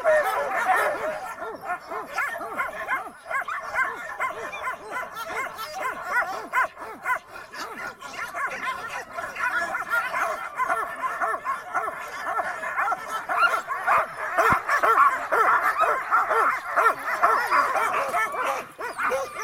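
A crowd of harnessed Alaskan sled dogs barking and yipping together, many voices overlapping without pause. Huskies make this noise while their teams are halted and not running.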